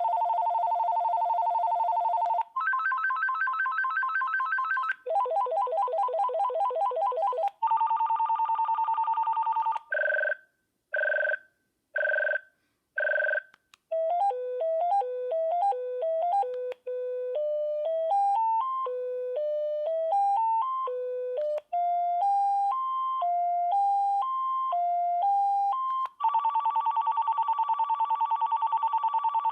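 VTech CS5109 cordless phone playing through its ringtones one after another. First come four different electronic warbling trills, each lasting a few seconds. Then there are four short beeps about a second apart, then a stepped electronic melody, and near the end another trill.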